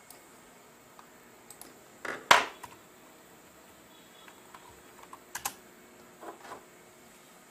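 A few scattered clicks and taps, with one louder knock about two seconds in and a quick double click near five and a half seconds.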